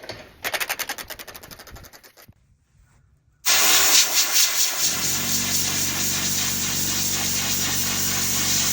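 Rapid clicking of a retractable air hose reel's ratchet as the hose is pulled out, fading over about two seconds. Then a loud, steady hiss of compressed air from a blow gun cleaning a shop vac filter, with the air compressor's motor starting up about a second and a half later and running steadily underneath.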